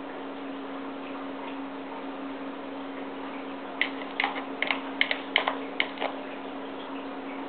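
A Norwegian Forest Cat's claws scratching and clicking against a plastic CD spindle cover as she digs at it: a quick run of about ten sharp scratches over two seconds, starting about halfway in.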